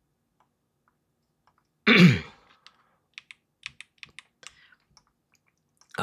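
A short throat-clearing about two seconds in, then a run of light, irregular computer keyboard and mouse clicks lasting about two seconds.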